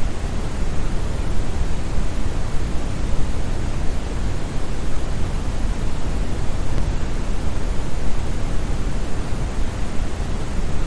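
Steady synthetic brown noise: an even, deep hiss weighted toward the bass, with no changes or events.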